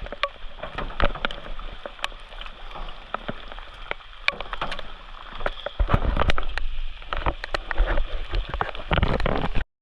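A kayak being paddled on a river: water sloshing and splashing, with sharp clicks and knocks from the paddle against the boat. Heavy low rumbling on the microphone starts about halfway through, and the sound cuts off suddenly near the end.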